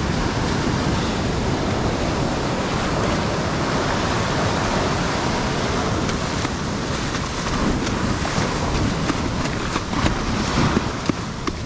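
Surf breaking and washing up a sandy beach in a steady rush of foam, with wind rumbling on the microphone.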